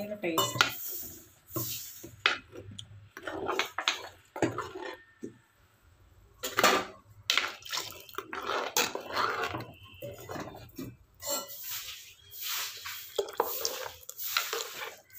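Metal spoon stirring thick curry paste in an earthenware pot, with irregular scrapes and clinks against the pot. Partway through, liquid is poured into the pot from a steel vessel.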